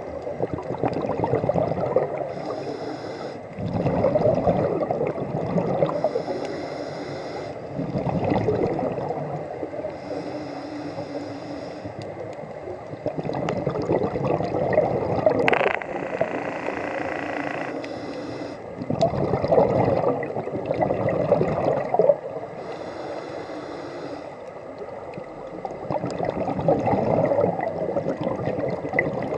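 Scuba diver breathing through a regulator underwater: a short hissing inhale followed by a longer, louder gurgling rush of exhaled bubbles, repeating several times.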